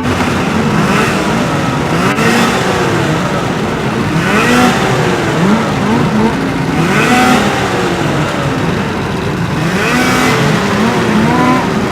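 Racing snowmobile engines revving as the sleds run past, the engine pitch rising and falling again and again, with a louder swell every two to three seconds.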